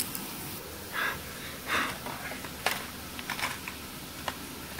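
Quiet handling noise: two short breaths, then a few light clicks and taps as toys are moved about on a tiled floor.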